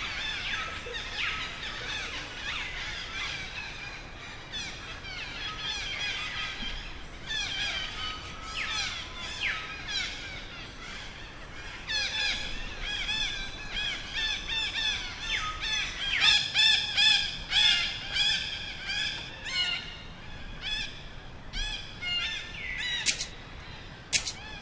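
Baby monkey squealing and screaming over and over in distress, each call short and high with its pitch bending up and down. The calls grow thicker and louder in the second half, and two sharp clicks sound near the end.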